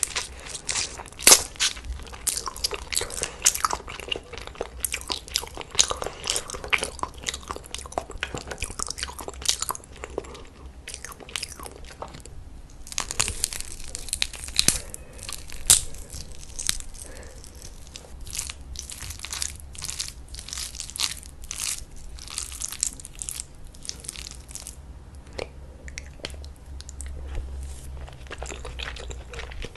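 Close-miked ASMR eating: a person biting and chewing food, with many sharp crunches and mouth clicks coming in clusters, thinning out for a few seconds about a third of the way in and again near the end.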